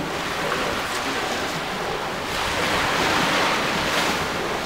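Small sea waves breaking and washing onto a pebbly beach in a steady wash, swelling a little louder about two and a half seconds in.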